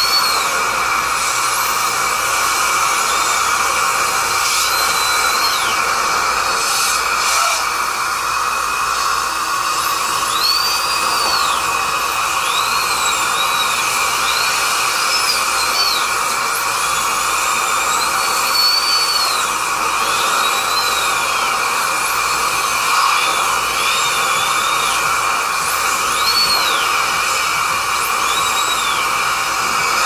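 Dental drill whining in repeated short runs, each rising in pitch and falling back, over a steady hiss and a constant high tone.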